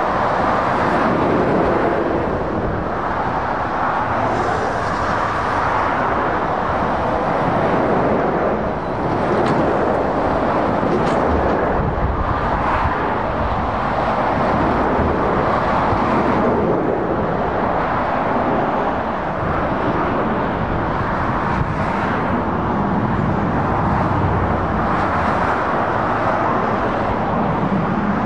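Motorway traffic: heavy lorries and cars passing at speed, a continuous roar of tyres and engines that swells and eases every few seconds as each vehicle goes by.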